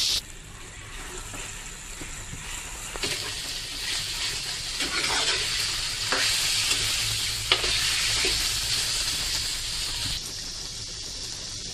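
Marinated chicken pieces sizzling in hot oil with fried onions in a pan, turned by a spatula that scrapes against the pan several times. The sizzle gets louder about three seconds in.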